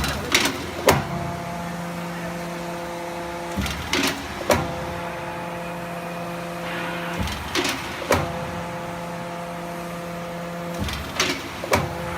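QC11Y hydraulic guillotine shear running, its hydraulic pump giving a steady hum. About every three and a half seconds, four times in all, the hum gives way to a short cycle with two sharp clunks about half a second apart.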